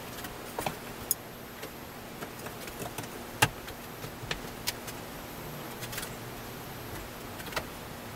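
Scattered light knocks and taps of wooden boards being handled and pressed together on a workbench, at irregular moments, the sharpest about three and a half seconds in, over a steady faint hiss.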